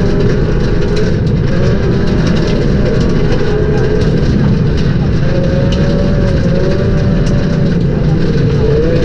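Ford Focus V1600 rally car's engine at speed, heard inside the cabin, its pitch rising and falling repeatedly with throttle and gear changes, over heavy road noise with scattered ticks.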